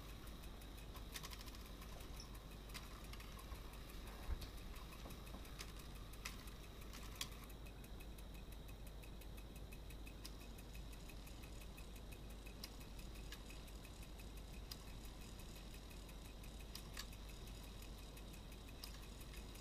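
Antique Badische clock movement running on the bench: rapid regular ticking with occasional louder clicks from its levers. A faint running noise stops about seven seconds in.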